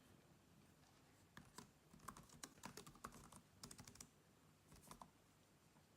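Faint typing on a computer keyboard: quick keystrokes in short runs, starting about a second and a half in and stopping about a second before the end.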